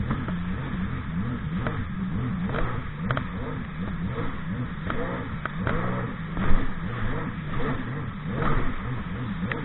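Sea-Doo Spark personal watercraft's engine running, its pitch rising and falling with the throttle, with several sharp knocks, the loudest about six and a half seconds in.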